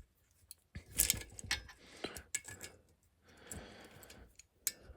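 Scattered metallic clicks and clinks from hand tools and small bolts while a cover is unbolted from a lawn mower engine being torn down.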